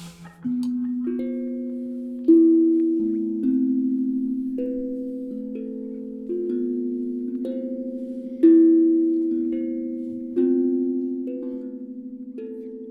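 A slow tune of single notes struck on a tuned percussion instrument, about one note a second. Each note starts sharply and rings on, fading slowly, so the notes overlap. A few notes are struck harder than the rest.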